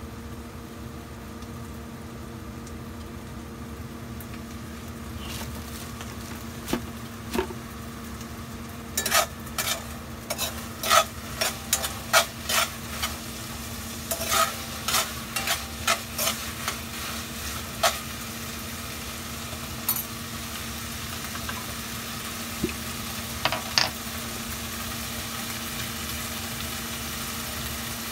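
Steady hiss from a saucepan heating over a gas stove burner. From about nine seconds in, more than a dozen sharp clinks of utensils against dishes and cookware, with two more near the end.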